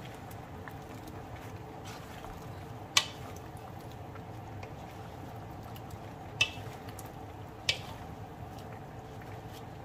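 Wooden spatula stirring vegetables in a metal wok, with soft scraping and squishing over a steady low hum. The spatula knocks sharply against the pan three times: about three seconds in, then near six and a half and seven and a half seconds.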